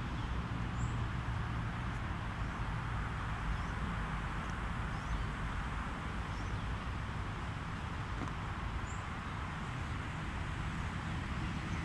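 Steady outdoor background noise with a low rumble, and a few faint, short high chirps scattered through it.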